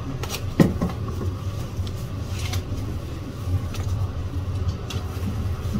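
Kitchen background noise: a steady low rumble with a few light clinks, and a sharper knock about half a second in.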